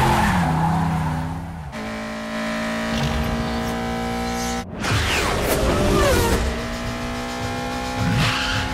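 Film race sound mix: car engines revving hard, with tyre squeal, over a music score. The sound breaks off suddenly at a cut about halfway through, then engine drone and squealing tyres resume.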